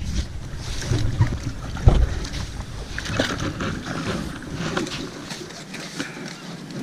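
Knocks, clatter and rustling of gear being handled aboard a small fishing boat, with one sharp knock about two seconds in. A low rumble under it drops away about five seconds in.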